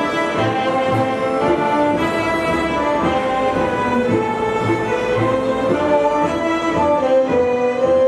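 Romanian folk string ensemble playing a tune led by several violins, with a regular low bass pulse underneath.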